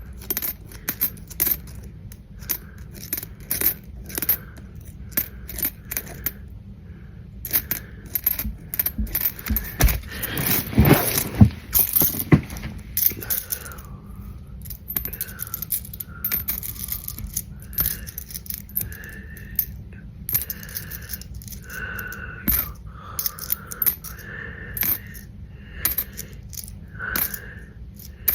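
Pennies clicking against each other as they are handled and counted by hand, many short separate clicks with a longer jingling clatter of coins about ten seconds in.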